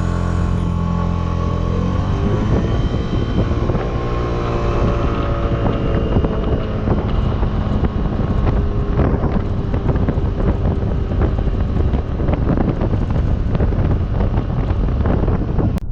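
2018 Suzuki Burgman 200 scooter's single-cylinder engine running under way, with wind buffeting the microphone. Its pitch climbs a little about two seconds in and then holds steady.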